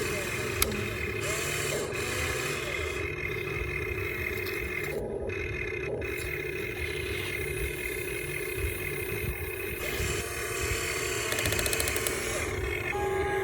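Electric motors and gearboxes of a Huina 1592 radio-controlled toy excavator whining steadily, with a sharp click about half a second in.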